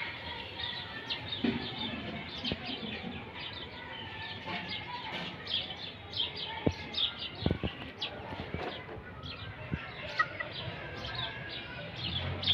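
Many small birds chirping at once in a busy, continuous chatter of short high calls, with a few sharp knocks about halfway through.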